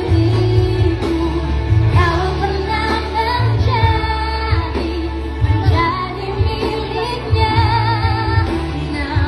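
A singer with a band performing a pop ballad, held notes wavering with vibrato over a steady, heavy bass line.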